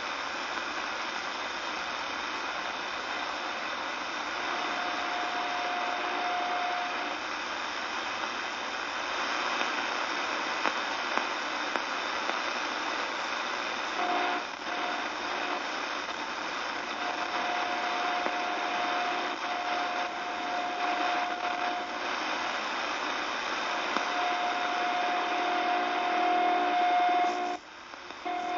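CB radio receiver tuned to 27.145 MHz, its speaker giving steady static hiss with a single steady whistling tone that comes and goes every few seconds. This is an unidentified signal on the channel. The hiss cuts out briefly near the end.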